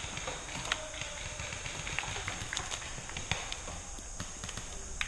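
Scattered sharp pops and snaps, several a second at irregular spacing, over a steady high hiss.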